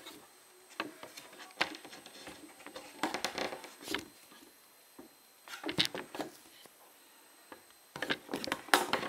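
Camera handling noise: scattered knocks and rubbing as the hand-held camera is moved and steadied, in a few clusters with quieter gaps between.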